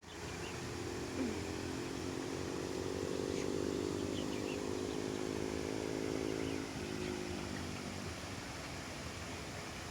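A motor vehicle's engine hums past, growing louder, then fading away after about seven seconds, over a steady rushing background noise. A few faint, short high chirps sound now and then.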